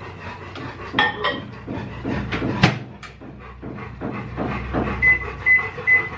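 Samsung microwave oven: handling clatter as a cup goes in, the door shut with a sharp clunk a bit under three seconds in, then three short beeps from its keypad near the end as the cooking time is set.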